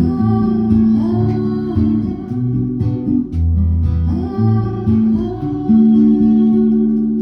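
Acoustic guitar playing the closing bars of a song, plucked notes over low bass notes, ending on a chord that is held and begins to fade.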